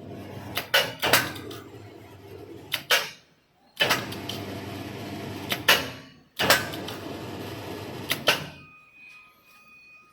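A machine running in three bursts of two to three seconds each, every burst starting and stopping abruptly with sharp clanks within it; a faint steady tone follows near the end.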